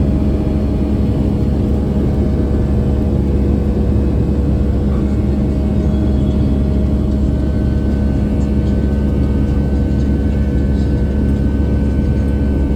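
Steady jet engine and airflow rumble inside the cabin of a Boeing 757-200, a heavy low drone with a few steady tones over it.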